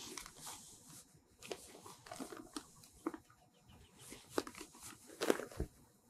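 Plastic bag of coffee beans being handled: crinkling and rustling with scattered small clicks, and a louder knock about five seconds in.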